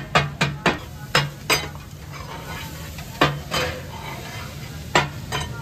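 Metal spatulas striking and scraping fish on a large tawa griddle, the katakat chopping: quick clanging strokes about four a second for the first second, then a few scattered strikes in pairs. A steady sizzle of frying runs underneath.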